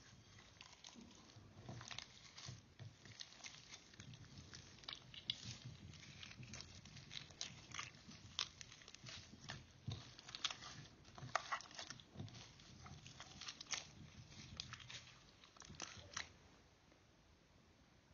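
Glitter slime with small gel beads mixed in being squeezed and kneaded by hand: soft, wet, irregular clicks, crackles and squelches, several a second, stopping near the end.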